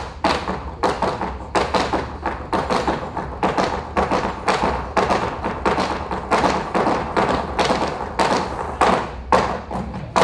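Flamenco footwork: two dancers' shoes striking the stage floor in a fast, uneven run of heel stamps and taps, several a second.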